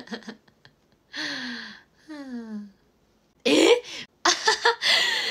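A young woman laughing: breathy bursts of laughter and falling, sighing 'haa' sounds, then a few loud, harsh bursts of laughter in the last two seconds.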